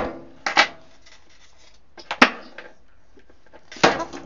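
A few sharp clicks and knocks, about a second or more apart with quiet between, as the wires of a dryer's power cord are handled and fastened at the terminal block.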